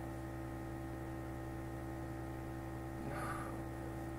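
Steady electrical hum made of several fixed tones, with a brief soft noise about three seconds in.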